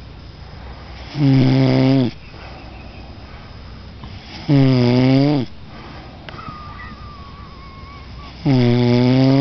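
A man snoring, three loud snores about three and a half seconds apart, each lasting about a second. A faint thin whistle sounds between the second and third snores.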